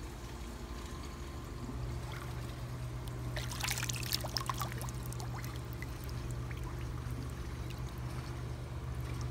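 Pool water splashing and trickling as a yellow Labrador retriever paddles and stirs the surface, busiest around the middle, over a steady low hum.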